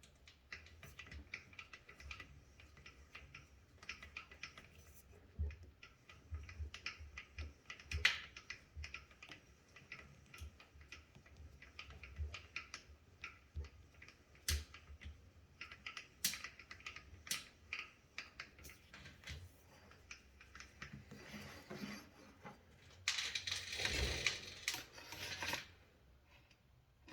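STIHL rivet spinner at work on a chainsaw chain's joining rivet, making irregular clicks and ticks of metal links and tool. Near the end comes a denser, louder stretch of rasping as the rivet head is spun over to finish the chain.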